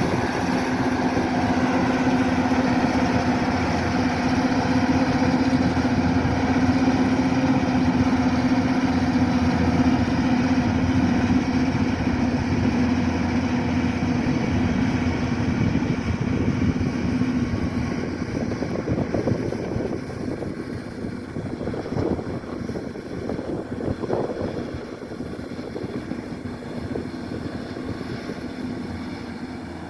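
Kubota DC-105X combine harvester running steadily with a constant engine hum. The hum fades after about 18 seconds, leaving a rougher, quieter machine noise.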